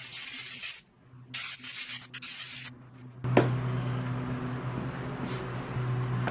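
Compressed air hissing in two bursts through a pleated paper air filter, blowing debris out of it. Then a knock and rubbing as the filter is handled and set back in its housing on the backpack blower, ending in a sharp click.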